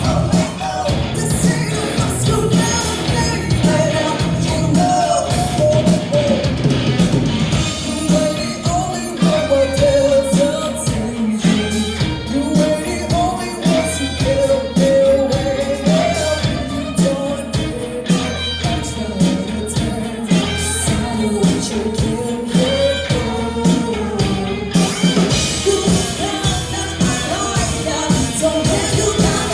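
A live rock band playing a song: a woman's lead vocal over loud electric guitars, bass and drums.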